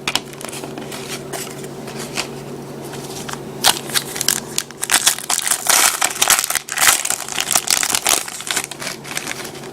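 A trading-card pack wrapper being torn open and crinkled, with a dense run of crackling from about a third of the way in until near the end, over a low steady hum.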